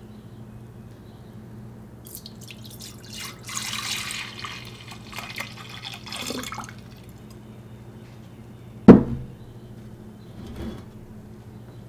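Dark red hibiscus concentrate poured in a stream into a ceramic pitcher for about four seconds. About nine seconds in there is a single loud, sharp knock as the emptied container is set down on the counter, followed by a lighter knock.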